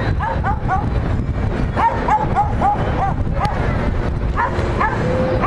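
A dog yapping in quick runs of short, high yaps, about five a second, with pauses between the runs, over a steady low rumble.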